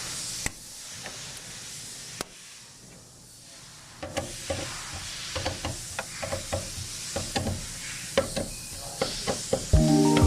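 Light, irregular clicks and taps of parts being handled, over a steady hiss.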